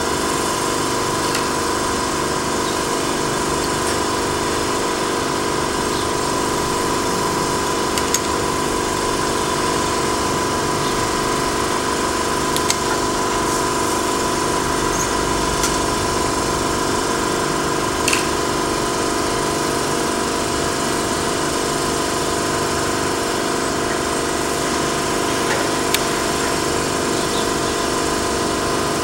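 Steady industrial machinery noise from a factory: a constant drone made of several steady tones with a high whine above it. A few faint clicks sound over it.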